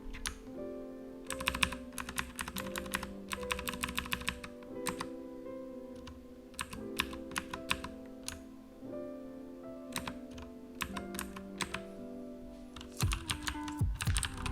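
Mechanical keyboard with clicky Cherry MX Blue switches being typed on in quick bursts of key clicks, with pauses between the runs. Background music with sustained notes plays under it.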